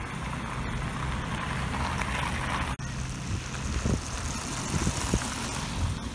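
City street traffic: a vehicle passes with a swelling rush of engine and tyre noise that cuts off abruptly a little under three seconds in. After that, wind buffets the microphone with low thumps.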